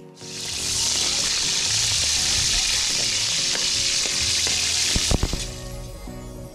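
Pieces of marinated puffer fish sizzling loudly in hot oil in a large wok over a wood fire, stirred with a metal spatula that clacks against the pan. The sizzle builds just after the start and dies down about five seconds in.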